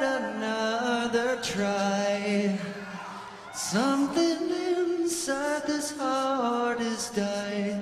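Male rock lead vocal singing a slow, drawn-out melody with music underneath, the held notes broken by a few sharp hissy consonants.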